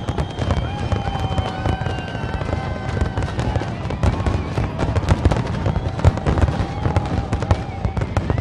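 Fireworks display: a dense string of sharp bangs and crackles in quick succession, with a crowd's cheering voices and long held tones underneath.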